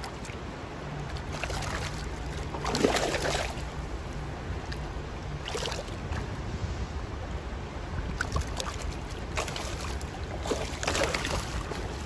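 Shallow creek water flowing and rippling among rocks, with about five short bursts of splashing, the loudest about three seconds in, over a low rumble.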